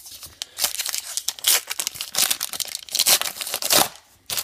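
Baseball card pack wrapper being torn open and crinkled by hand, in a run of short rips and rustles.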